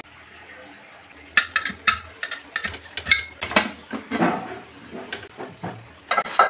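Aluminium pressure cooker handled: its whistle weight is lifted off the vent and the lid worked open, giving a string of light metallic clinks, taps and scrapes, with the loudest clanks near the end.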